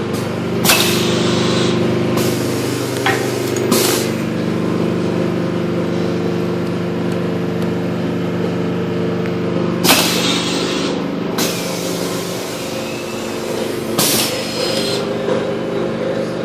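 Pneumatic screen-printing press running: a steady machine hum in several tones, broken by sharp hisses of air from its cylinders about four times as the print head cycles.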